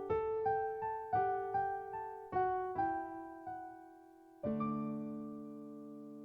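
Background piano music: a gentle melody of struck notes, about two or three a second, each dying away, then a chord struck about four and a half seconds in and left to ring.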